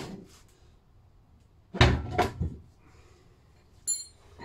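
Lister D engine being tipped over onto its side on a wheeled dolly: a heavy thud about two seconds in with a second knock just after, then a short metallic clink with a brief ring near the end.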